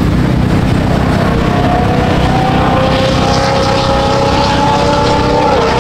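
A vehicle engine running steadily and loudly, with a few steady higher tones joining about halfway through.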